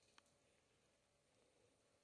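Near silence, with one faint short click shortly after the start.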